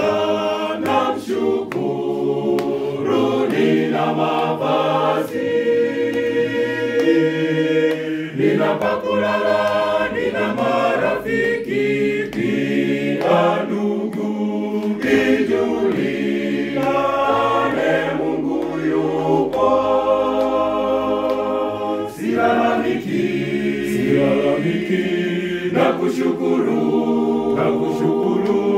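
Mixed choir of men's and women's voices singing a Swahili religious song a cappella, in sustained multi-part harmony.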